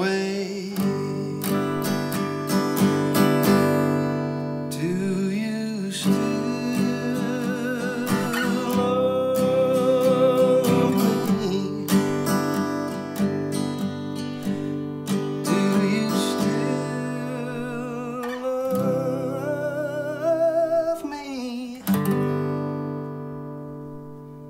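Acoustic guitar playing a song's slow outro, with a voice holding wordless wavering notes over it at times. Near the end a last chord is struck and rings out, fading away.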